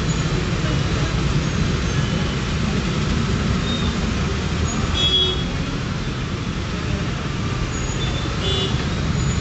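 Steady street noise of traffic on a road bridge over fast-flowing floodwater, with a few brief faint high tones about five seconds in and again near the end.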